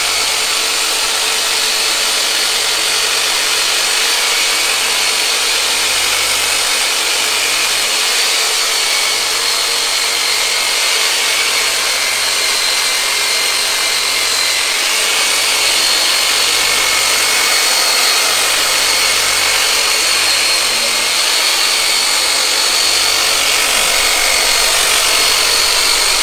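Electric deep-tissue massage tool running steadily with a constant high whine as it is worked over a patient's lower back muscles.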